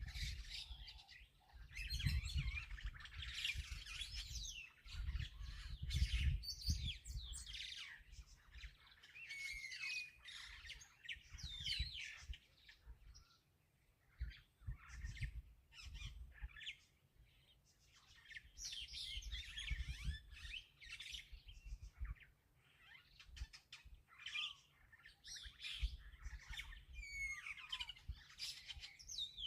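Several birds chirping and calling in quick, overlapping phrases, with a low rumble that comes and goes underneath.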